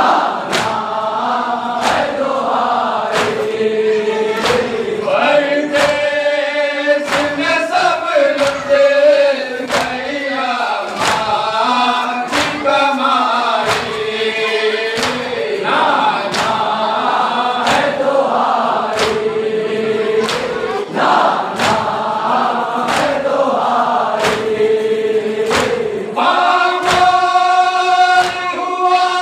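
A group of men chanting a noha, a lament, in unison, while the crowd beats their chests (matam) in a steady rhythm of sharp slaps about once a second.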